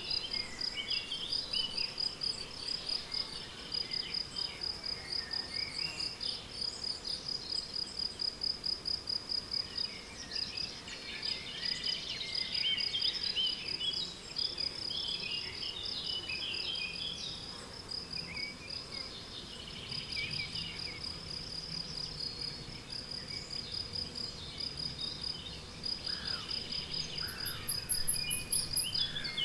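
Crickets chirping steadily in a rapid, high-pitched even pulse, with songbirds singing scattered phrases over them. The birds are busiest in the middle, and a thin, high falling trill comes near the end.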